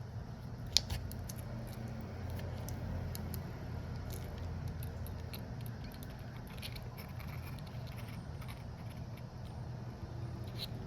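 Small clicks and light scratching of hand tools working on an opened smartphone, with one sharp click about a second in, over a steady low hum.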